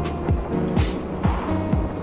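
Background electronic dance music with a steady thumping kick drum, about two beats a second, under held synth tones.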